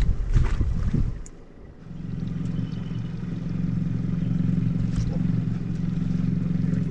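Wind buffeting the microphone for about the first second. From about two seconds in, a boat motor runs with a steady low hum.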